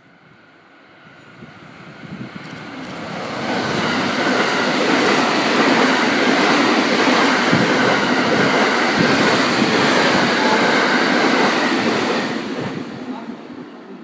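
JR West 683 series Thunderbird limited-express electric train passing at speed. The rush of wheels and air builds over about four seconds, stays loud for about eight seconds, then falls away quickly near the end.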